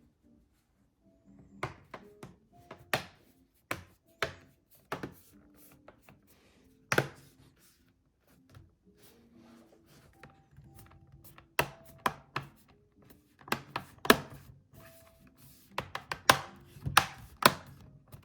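Irregular sharp clicks and knocks, well over a dozen, from laptop parts being handled and fitted, with a pause of a few seconds in the middle. Soft background music plays underneath.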